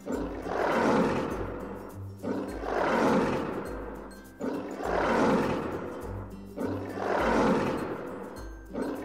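Lion roaring again and again, about one roar every two seconds, each swelling and then fading.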